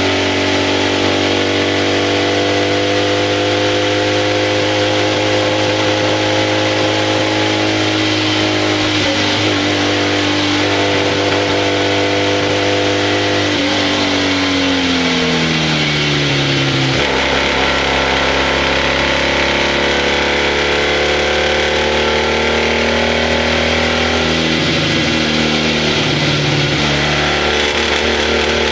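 BMW 700 RS's air-cooled flat-twin engine, heard from the cockpit, pulling uphill. The revs sag slowly, then drop sharply about halfway through, then hold and climb again near the end, with wind and road noise underneath.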